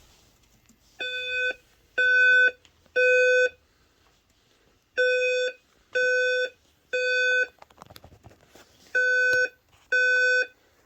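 Fire alarm speaker strobes sounding the Simplex Boston evacuation tone: a steady tone in three half-second blasts, a short pause, then the group of three again, three groups in all.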